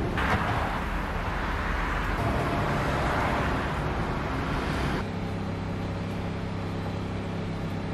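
Steady traffic noise. About five seconds in it changes abruptly to a quieter, steady low hum.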